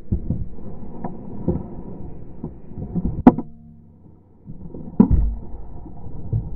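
Muffled thumping and rumbling with sharp knocks about one, three and five seconds in: a big muskie being netted beside a boat, thrashing and knocking against the net and hull.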